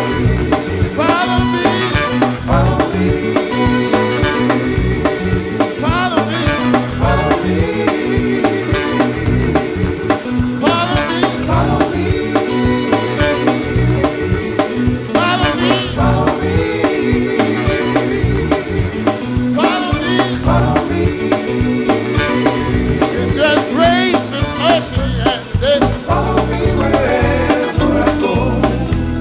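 Band music with a steady drum-kit beat and singing voices.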